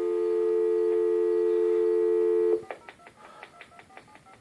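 Telephone dial tone, a steady two-note hum, for about two and a half seconds, then cut off; a quick run of short, fainter touch-tone beeps follows as a number is keyed in on the phone used to call the rotary phone.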